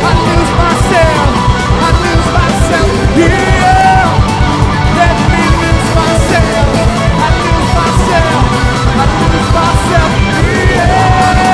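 Live rock band playing loudly: drum kit, electric bass and electric guitar, with vocals over them.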